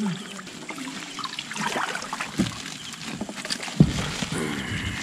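Water sloshing and trickling as a fishing net is hauled and handled in a river, with a sharp knock about four seconds in.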